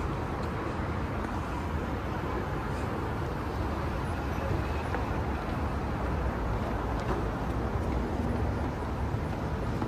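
Steady road traffic noise with a low engine rumble.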